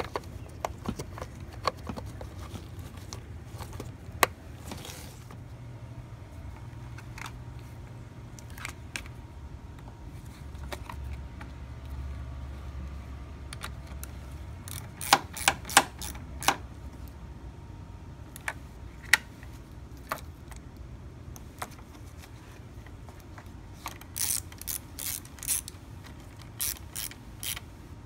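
Socket ratchet clicking in short runs as a car battery's terminal clamp nuts are tightened, with scattered sharp metal clicks and taps. There is a tight cluster of clicks about halfway through and a faster run of ratchet strokes near the end.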